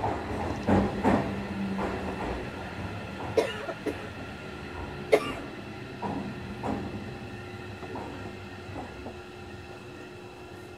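Inside a JR Kyushu 305 series electric train's motor car while it runs: wheels clack over rail joints in the first couple of seconds under a steady hum of several tones. Two sharp knocks come about three and five seconds in, and the running sound grows gradually quieter.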